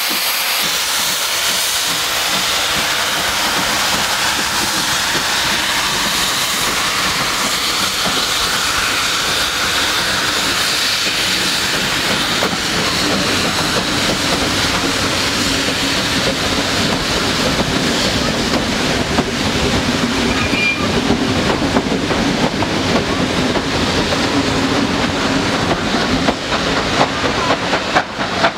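Steady hiss of steam escaping from under and between the coaches of a slowly passing steam-hauled train, with the wheels clicking over the rail joints. A low drone builds from about halfway through.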